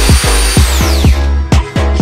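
Background electronic music with a fast, pounding beat. A high whine above it drops in pitch and dies away about a second in.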